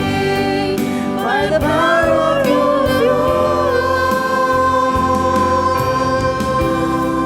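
Church congregation singing a worship song with musical accompaniment, the voices holding long notes.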